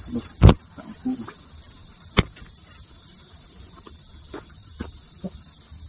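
Steady high-pitched chorus of night insects, with a loud sharp knock about half a second in and a smaller sharp click about two seconds in.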